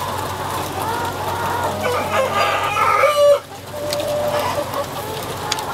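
A large flock of broiler breeder chickens clucking and calling over one another, with one louder, drawn-out call about halfway through that stops abruptly.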